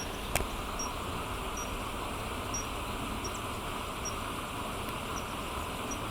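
Steady outdoor background noise with faint, short high-pitched chirps repeating about once or twice a second, and one sharp click near the start.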